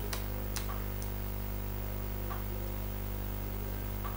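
Steady electrical mains hum, with a few faint, scattered clicks.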